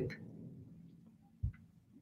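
Near silence: quiet room tone, broken by one brief, low thump about one and a half seconds in.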